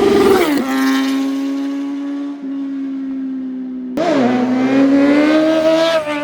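Kawasaki Z900 inline-four engine running at high revs. The pitch drops sharply about half a second in and then holds steady. About four seconds in there is an abrupt break, after which the pitch dips and then climbs again.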